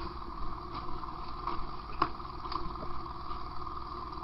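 Steady rushing noise with a low rumble at a working house fire, broken by a handful of sharp cracks; the loudest crack comes about two seconds in.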